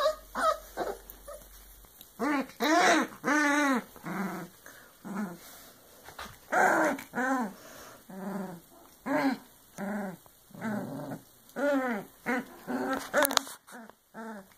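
Three-and-a-half-week-old Doberman puppies vocalizing as they play-fight: a string of short calls that rise and fall in pitch, one or two a second.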